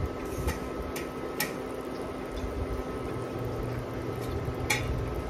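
Pork sinigang broth boiling in a pot: a steady bubbling simmer with a few sharper pops, over a steady hum.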